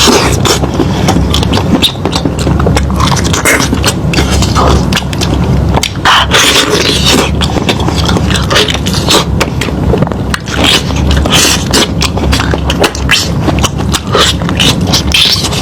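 Loud close-up eating noises: lamb meat being chewed and torn, with continual crackly scraping sounds.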